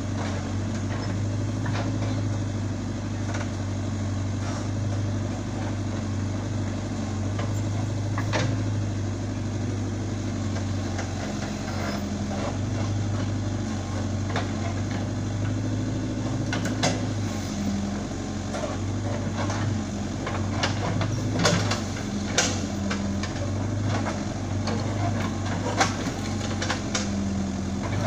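Caterpillar 422F backhoe loader's diesel engine running steadily under working load as the backhoe digs. Scattered sharp clanks and knocks come from the bucket and arm, more often in the second half.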